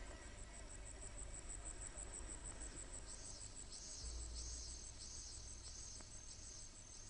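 Faint crickets chirping: a fast, steady high trill, joined about three seconds in by a lower chirp repeating a little under twice a second.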